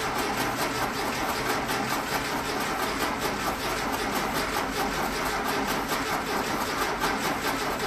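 Starter cranking a freshly built air-cooled Volkswagen flat-four with the coil disconnected so it cannot fire, turning it over in an even rhythm to build oil pressure before its first start.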